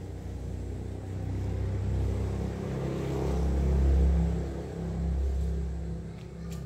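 A low rumble that swells to a peak about four seconds in, dips, rises briefly again and then eases off.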